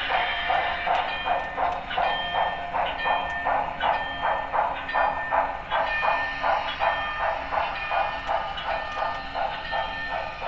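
Digital sound system of a Broadway Limited Paragon 3 HO-scale 2-10-4 steam locomotive playing steady, rhythmic steam-exhaust chuffs, about three a second, through its small onboard speaker as the model runs. A few light clicks sound along with it.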